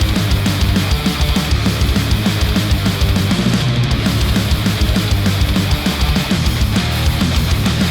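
Heavy rock music with distorted guitar and fast, driving drums, played through a pair of headphones and recorded by microphones at the earcups.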